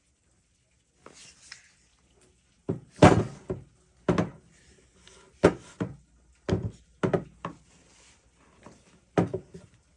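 A series of heavy knocks and thuds, about a dozen, coming mostly in twos and threes with short gaps between the groups, after a faint hiss about a second in.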